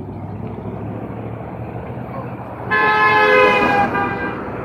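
A vehicle horn sounds once: a loud, steady two-tone honk lasting a little over a second, over a steady background of street traffic.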